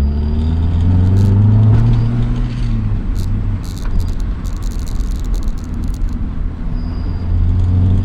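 Honda B20 VTEC engine (2-litre B20 block with a B16 VTEC head) pulling hard under acceleration. Its note rises for about two seconds, falls away about three seconds in, then climbs again near the end.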